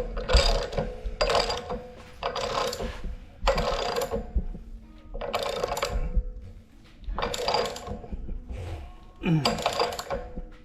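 A wrench tightening a pipe-doped threaded fitting on a water heater, with a metallic grinding stroke on each pull, roughly one a second, repeated about eight times.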